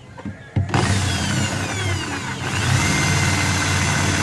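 Corded electric drill boring through a fiberglass boat hull to make the propeller shaft hole. It starts about 0.7 seconds in, its motor pitch sags as the bit bites, then it runs steadily.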